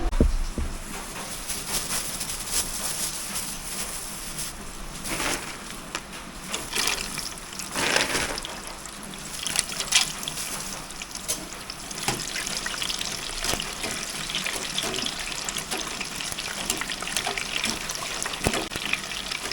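Tap water running and splashing in a sink, with several louder gushes, as raw pig skin is washed.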